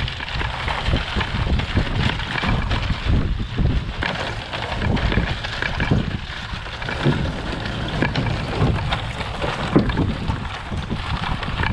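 Chain-link fence drag weighted with wooden pallets scraping and rattling over dry pasture as it is towed, breaking up manure piles, with wind rumbling on the microphone.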